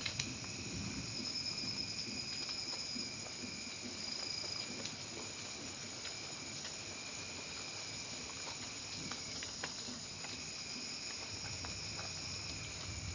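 Steady rain pattering, with scattered sharp drop ticks. A thin steady high-pitched tone runs over it and breaks off briefly about two-thirds of the way through.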